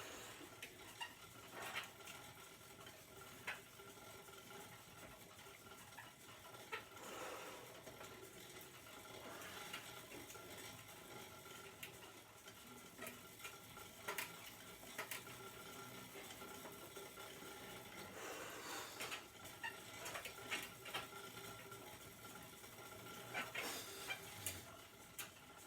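Faint steady whir of an indoor exercise bike being pedalled, with scattered light clicks and knocks.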